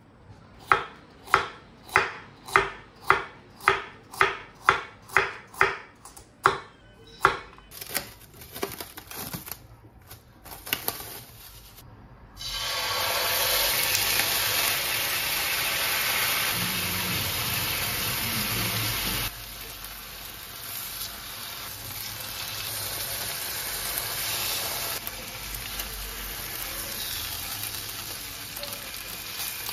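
A chef's knife chopping carrot on a wooden cutting board, about a dozen sharp, even strokes a little under half a second apart. Then, about twelve seconds in, salmon fillets start sizzling steadily in oil in a hot frying pan, easing off a little partway through.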